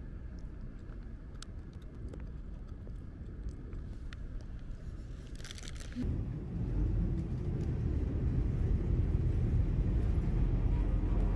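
A steady low outdoor rumble with a few faint clicks, then about six seconds in a louder, dense low rumble of a moving bus, engine and road noise heard from inside.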